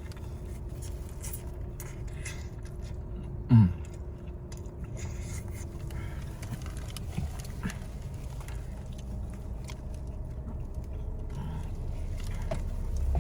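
A person chewing and eating a meatball sub, with small wet clicks and scrapes of food and wrapper over a steady low hum. A short low sound falling in pitch comes about three and a half seconds in.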